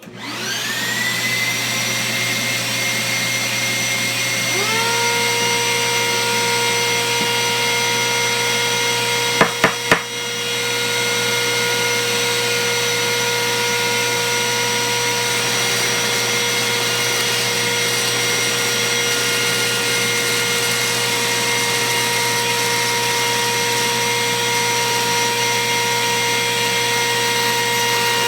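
Router motor spinning up to a steady high whine, joined about four and a half seconds in by a second motor whining up to speed. About ten seconds in come three sharp clicks, the loudest sounds, and then the steady whine runs on.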